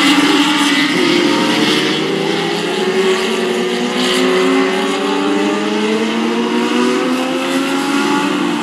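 Several Legends race cars with four-cylinder Yamaha motorcycle engines running at speed around the track, their overlapping engine notes sliding up and down in pitch as they pass and accelerate.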